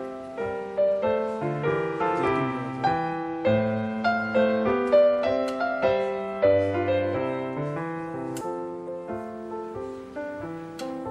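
Background piano music: a steady stream of struck notes, each fading after it sounds.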